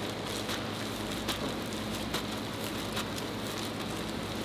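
Gloved hands spreading and pressing cooked rice over a sheet of dried laver on a bamboo rolling mat, with faint scattered clicks and crackles, over a steady hiss and a low steady hum of kitchen background.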